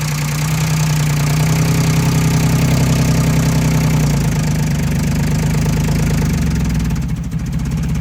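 Hyundai Sonata's 3.3-litre V6 engine being revved gently: it builds a little over the first couple of seconds, holds, eases off about four seconds in and settles lower near the end. The slight noise under diagnosis is no longer heard, the engine's sound having changed only a little.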